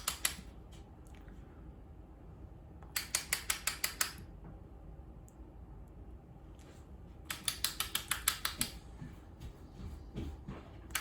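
Two runs of rapid, even clicking, about eight clicks a second and each lasting about a second, a few seconds apart: a lip gloss tube and its applicator wand being worked while the gloss is put on.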